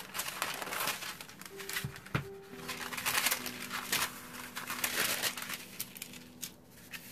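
A sheet of tracing paper rustling and crinkling as it is handled, first cut with scissors, then laid over a printout and smoothed flat by hand: irregular crisp rustles with a few sharp clicks.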